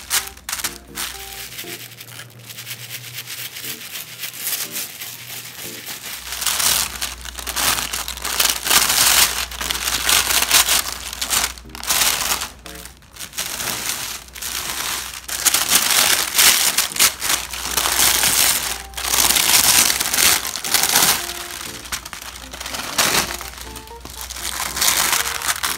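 Oil paper and thin plastic-bag film crinkling and rustling in irregular bursts as the paper is peeled off the iron-fused plastic sheet and the loose pieces are handled. The crinkling is quiet at first and grows loud about six seconds in.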